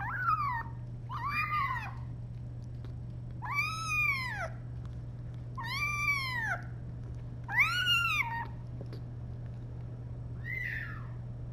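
Very young orphan kitten meowing: six high cries spaced a second or two apart, each rising then falling in pitch, the last one fainter. A steady low hum runs underneath.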